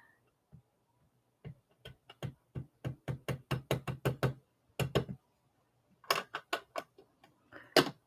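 A plastic-cased Simon Hurley dye ink pad tapped repeatedly onto a stamp to ink it, in quick light taps about three a second with a pause in the middle. A louder knock near the end comes as the pad is set down on the table.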